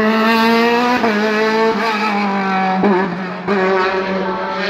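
Open-cockpit sports prototype race car's engine at high revs as it drives away up the hill course. Its note steps down sharply about a second in and again around three seconds in, as it shifts up through the gears.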